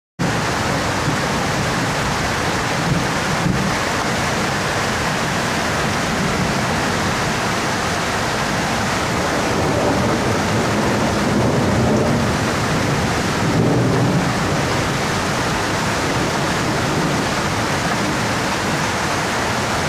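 Heavy rain pouring down together with a flooded creek rushing. The sound is a loud, steady wash of water noise that swells slightly for a few seconds past the middle.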